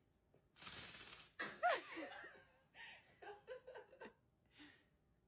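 People laughing and giggling in short bursts, starting about half a second in and dying away near the end.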